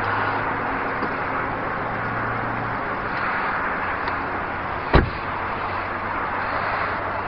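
A car door slamming shut once, about five seconds in, over the steady low hum of the car idling.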